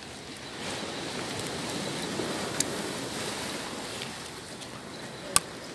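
Steady wash of sea waves on the shore, with a faint click midway and a sharp, loud click near the end.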